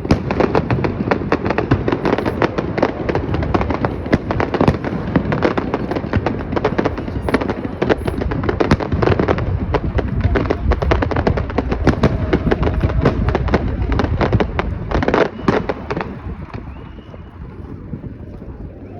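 Fireworks going off in a dense, rapid stream of bangs and crackles, heaviest about fifteen seconds in, then thinning out and quieter near the end.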